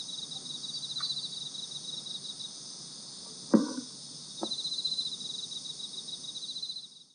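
Crickets chirping in a steady, pulsing trill, with one sharp knock about halfway through and a couple of faint ticks; the sound fades out at the very end.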